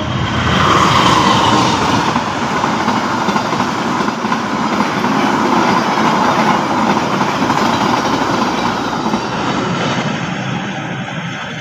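Passenger train passing close by at speed: a loud, steady rush of wheels on rail and coaches going by. A whine falls in pitch over the first couple of seconds, and the sound begins to fade near the end.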